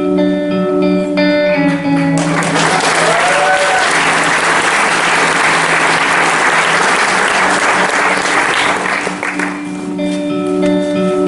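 An audience applauding over plucked-guitar backing music. The applause starts about two seconds in and dies away around nine seconds, while the guitar music carries on underneath.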